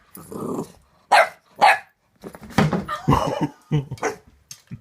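Boxer puppy barking repeatedly: a rough opening sound, two sharp single barks, then a quicker run of barks.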